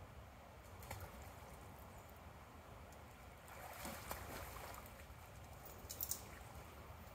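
Faint splashing of a hooked catfish at the surface of the river, strongest about four seconds in, with a couple of sharp clicks near the end.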